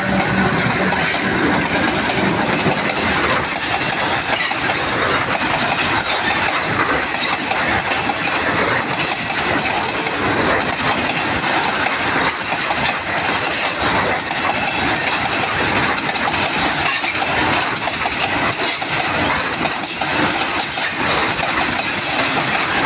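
Container freight wagons rolling past at close range, their wheels clattering and clanking steadily over the rail joints.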